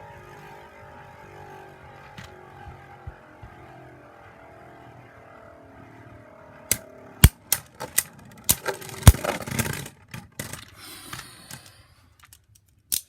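Beyblade spinning tops whirring in a plastic stadium, their hum slowly falling in pitch as they spin down. About seven seconds in comes a quick run of sharp plastic clacks and knocks, the loudest sounds here, then lighter rattling.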